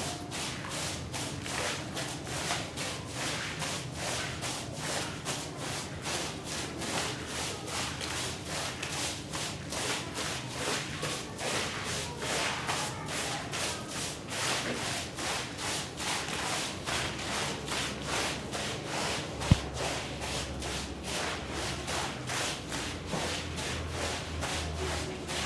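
Brush scrubbing a rug in quick, even strokes, about three a second. One sharp click comes about three-quarters of the way through.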